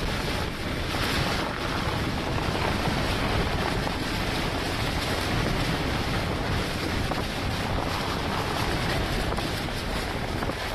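Hurricane wind blowing hard across the microphone: a steady, loud rush of noise with heavy low rumble that swells and eases slightly.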